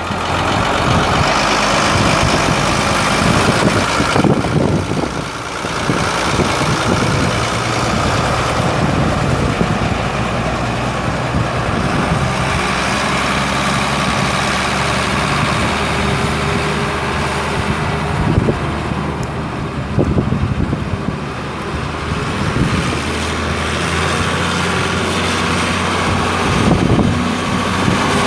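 Ford TW35 tractor's 6.6-litre six-cylinder diesel engine running steadily.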